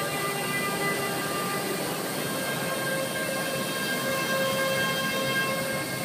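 Several Parrot AR.Drone 2.0 quadcopters flying together, their electric rotors giving a steady whine of several held tones that drift slightly in pitch, over a constant background wash of noise.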